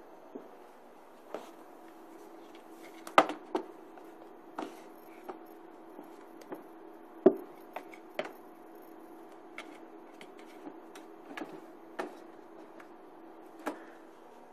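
Irregular taps and knocks of a kitten batting at and pouncing on a cardboard shoebox, two louder knocks about three and seven seconds in, over a faint steady hum.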